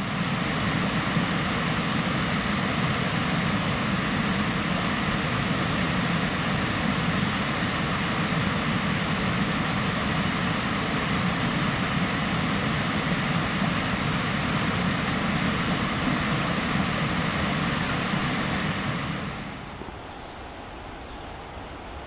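Steady rush of fast-flowing stream water tumbling over rock, even and unbroken, dropping to a much quieter hush near the end.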